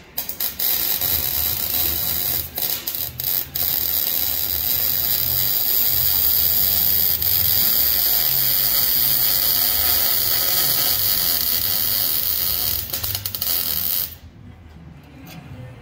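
Electric arc welding on an exhaust pipe: the arc crackles and hisses in a few short starts and stops, then runs as one long steady bead for about ten seconds before cutting off near the end.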